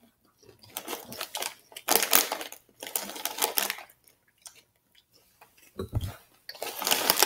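Rap Snacks potato-chip bag crinkling in irregular bursts as a hand digs in and pulls out chips, with crunching of the chips. A low thump comes near the end.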